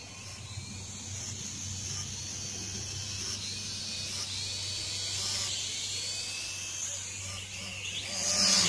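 Small toy quadcopter drone's electric motors and propellers whining, the pitch wavering as it is steered. It grows louder near the end as the drone comes down close over the picnic table to land.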